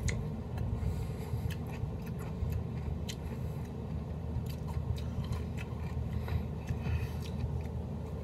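A man chewing a crunchy fermented whole kosher dill pickle: scattered short, wet crunches and clicks over a steady low hum.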